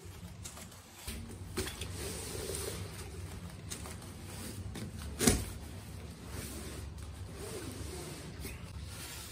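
Cardboard box and padded fabric bag scraping and rustling as the bag is worked out of the box, with one sharp knock about five seconds in.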